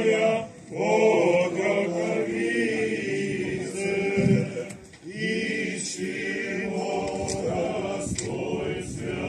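A group of voices singing Russian Orthodox liturgical chant, in sung phrases with brief breaks about half a second in and about five seconds in.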